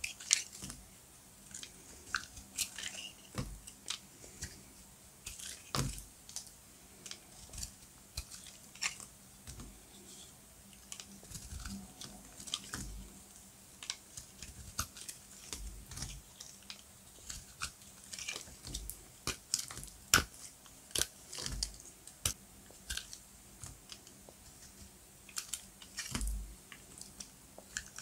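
Knife cutting through dry, brittle glam soap: an irregular run of sharp crunches and crackles, with occasional low thuds.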